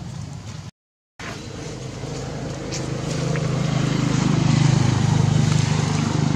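A motor engine running steadily with a low hum, growing louder from about halfway through. The sound cuts out completely for a moment about a second in.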